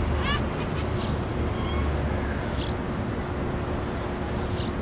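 Street ambience: a steady low traffic rumble with a faint steady hum, and a few short high chirps scattered through it.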